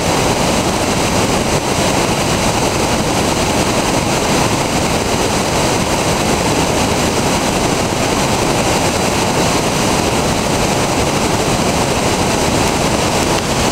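Whitewater rapids rushing steadily over and around boulders, a constant noise of moving water with no breaks.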